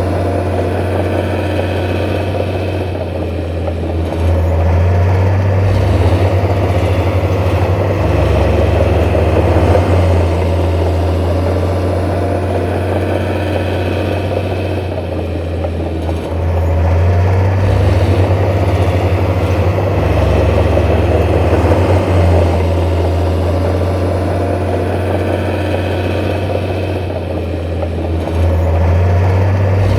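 Heavy diesel engine of earthmoving machinery running under changing load, a deep steady hum that swells louder three times, roughly every twelve seconds.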